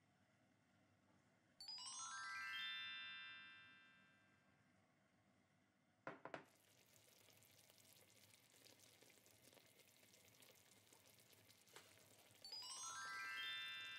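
A sparkly chime sound effect, a quick run of bell-like notes ringing downward, about a second and a half in and again near the end. In between, after a couple of clicks, chicken ajillo bubbles and crackles in olive oil in a skillet.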